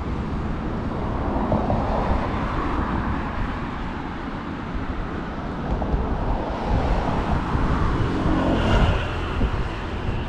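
Road traffic: a steady rumble of passing cars, with one vehicle going by louder about eight to nine seconds in.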